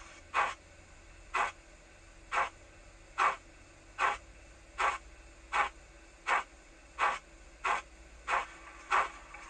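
Hornby M7 model steam locomotive chuffing in step with puffs from its synchronised cold-water smoke unit: short hissing chuffs, about one a second at first and quickening to nearly two a second as the loco speeds up, over a faint steady hum.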